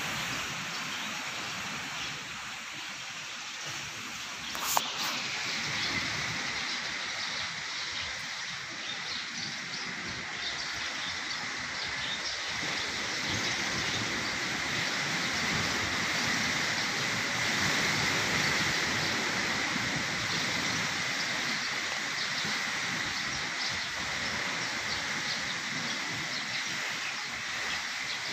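Steady outdoor noise like wind and surf. A sharp click comes about five seconds in, and a steady high-pitched whine starts right after it and holds on.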